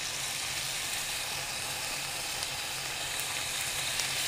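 Cubes of beef stew meat sizzling in hot olive oil in a nonstick pan on medium-high heat: a steady hiss with a few faint ticks as the pieces go in to brown.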